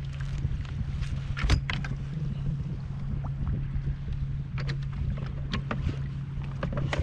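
Ambience aboard a kayak on open water: a steady low rumble with scattered light knocks and clicks, the sharpest about a second and a half in.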